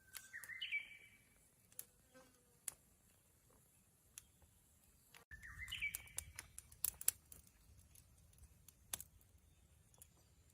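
A songbird sings the same short phrase twice, about five seconds apart: a brief held whistle that breaks into a quick, higher warble. Scattered sharp clicks and crackles run beneath it.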